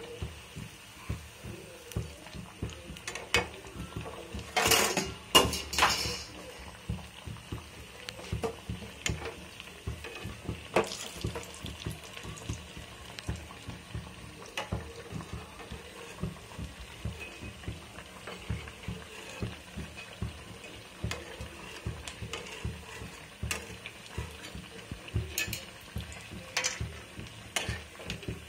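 Battered potato chops deep-frying in oil in a steel kadai, a steady sizzle, with a metal spatula clinking and scraping against the pan; the loudest clatter comes about five seconds in.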